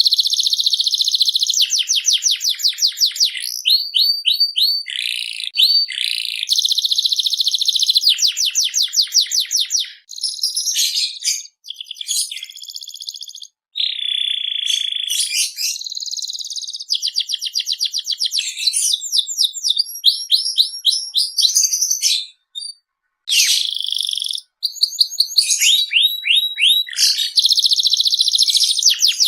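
Domestic canary singing a long, continuous song of fast rolling trills, rapid repeated chirps and buzzy held notes, with only short pauses.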